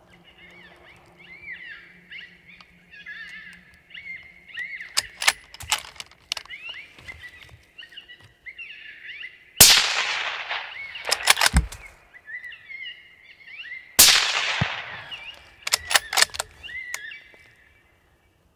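An electronic predator caller plays repeated high coyote-pup distress yelps. Two 6.5 Creedmoor rifle shots go off about four seconds apart, near the middle and in the second half, each a loud crack trailing off, with sharp clicks after each one.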